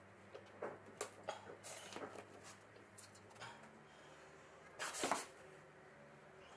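Quiet handling sounds as PVA wood glue is squeezed from a plastic bottle onto the edge of a kitchen end panel and worked in by finger: scattered small clicks and rustles, then a louder, short rustling burst about five seconds in.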